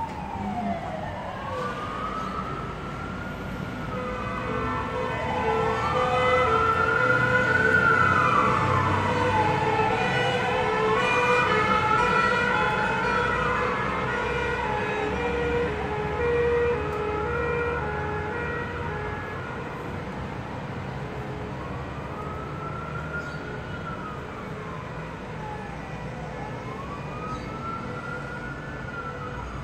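Fire engine siren wailing in slow rises and falls, growing louder until about eight seconds in and then fading a little. Underneath it, a second tone beeps steadily.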